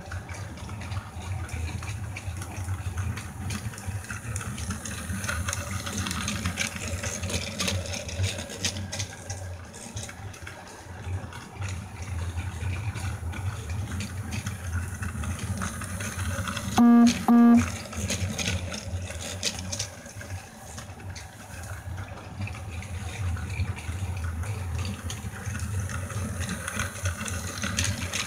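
Battery-powered plastic toy freight train running round a plastic track, its small motor whirring and its wheels rattling steadily, a little louder near the end as it passes close. A little past halfway come two short, loud beeps.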